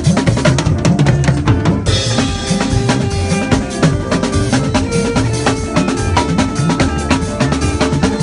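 Live drum kit and hand-played congas in a fast, driving rhythm over a few sustained instrumental tones, with a brighter cymbal wash joining about two seconds in.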